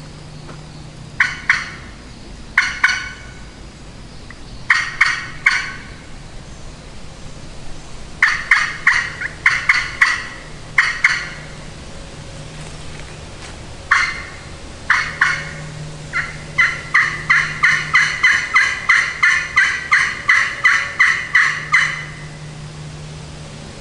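Turkey calling: loud hen-turkey yelps in short bursts of two or three notes, then a long even series of about three yelps a second for roughly six seconds near the end. This is typical locator calling to strike a gobbler.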